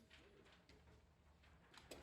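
Near silence, with a faint click near the end.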